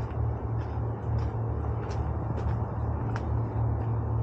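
Low rumble of wind buffeting the microphone, with a few irregular footsteps on a sandy dirt trail.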